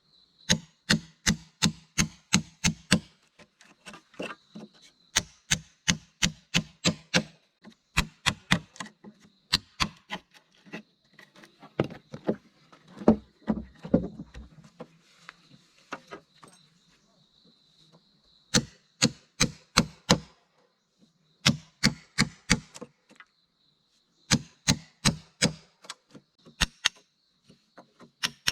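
Rapid sharp strikes on wood in bursts of about four a second, with short pauses between bursts and a few heavier thuds midway, like chopping or hammering on timber. A faint steady high buzz runs underneath.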